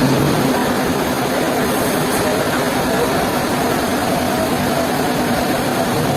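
Heavy machinery running steadily at an even level, a dense mechanical din with a faint constant hum.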